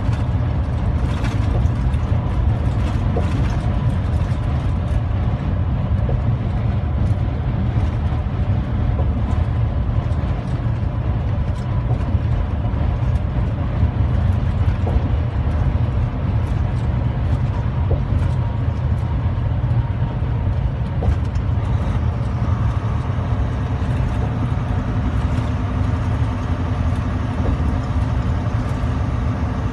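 Steady, deep engine and road noise inside a truck cab cruising at highway speed.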